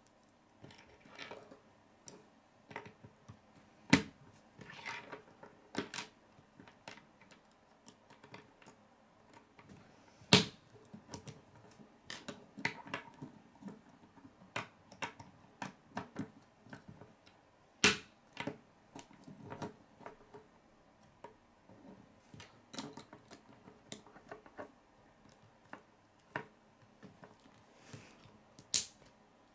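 K'nex plastic rods and connectors being handled and clicked together, a run of irregular small clicks and rattles with a few sharp, louder snaps as pieces lock into place.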